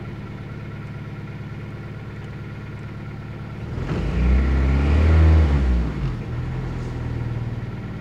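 2000 Toyota Celica GT's 1.8-litre four-cylinder engine idling rough from a dead misfire on cylinder 2, blamed on a bad ignition coil. About four seconds in it is revved briefly, the pitch rising and falling back to idle.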